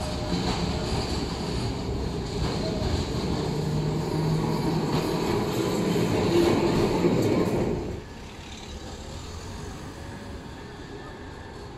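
A vintage two-axle tram running on street rails, wheels rumbling and its motor humming, growing louder as it passes close by. About 8 s in the sound cuts off sharply to a quieter street hum, with a modern articulated tram approaching in the distance.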